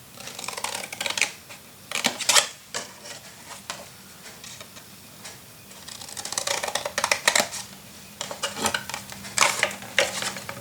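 Paper and cardstock being handled and trimmed with scissors: crisp rustling and snipping in several short bursts with pauses between.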